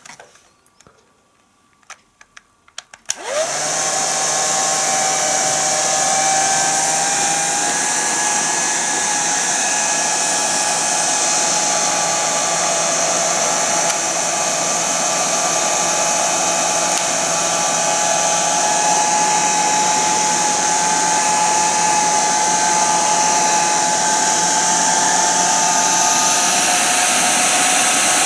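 A few faint clicks, then about three seconds in a Krups Quickair 600 bonnet hair dryer switches on and runs steadily: a loud rush of air with a steady motor whine over it.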